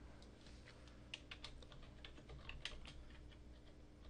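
Faint computer keyboard typing: an irregular run of key clicks as a search term is typed in.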